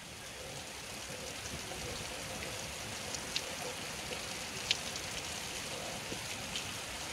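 Rain falling steadily, with a few louder drops ticking now and then.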